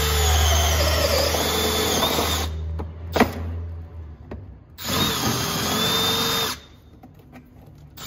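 Cordless drill with a step bit boring out a hole in a plastic van bumper cover, run twice: a steady whine for about two and a half seconds, a sharp click, then a second run of about a second and a half that stops suddenly.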